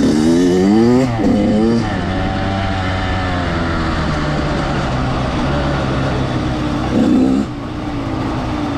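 Dirt bike accelerating. Its pitch climbs and drops twice in the first two seconds as it shifts up, then it runs at a steady pitch.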